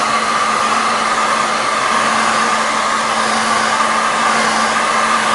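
Hot-air blower running steadily with a constant whine, heating a phone's replacement glass to set its adhesive.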